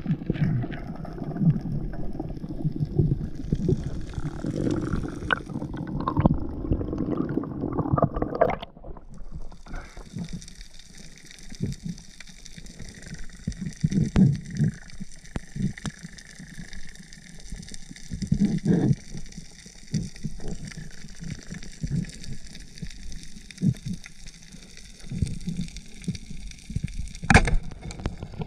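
Water sloshing and gurgling as heard underwater, with scattered dull knocks. It is louder and rumbling for the first eight seconds or so, then quieter with a steady high hiss. A single sharp click comes near the end.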